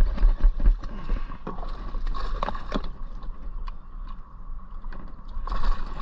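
Hooked bass splashing at the surface as it is reeled in to the side of a kayak, with bursts of splashing about midway and again near the end. A low wind rumble sits on the microphone underneath.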